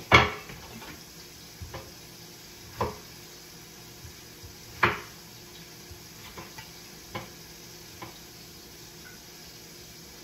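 Pork belly frying without oil under the lid of a stainless steel Saladmaster pot: a faint steady sizzle broken by scattered pops and ticks. The loudest pop comes just at the start, with clear ones about three and five seconds in.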